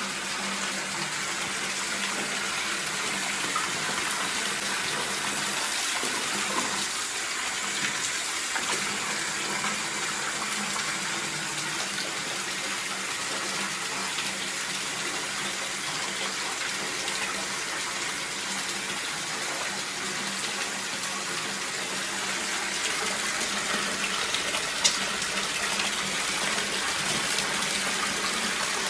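Water running steadily from a tap into a partly filled bathtub, with one brief click near the end.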